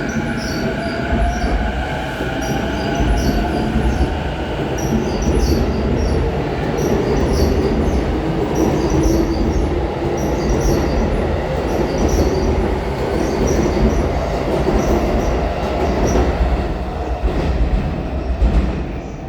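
Tokyo Waterfront Area Rapid Transit 71-000 series electric train pulling out of the station: the traction motors' whine rises in pitch over the first few seconds, then the cars rumble and clatter past on their wheels, the sound dropping away near the end.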